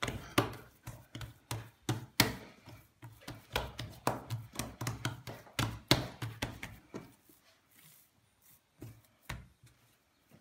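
Quick, irregular sharp knocks and taps on a kitchen work surface, several a second, thinning out to a few single knocks after about seven seconds.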